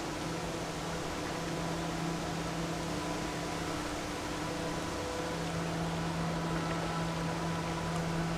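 Steady low drone of a large ship's engine machinery: a humming tone over a rushing noise, the low hum dipping briefly about midway.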